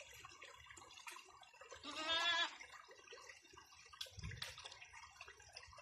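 A goat bleats once, a single wavering call of about half a second, about two seconds in. A brief low thump follows about two seconds later, over faint scattered crackling.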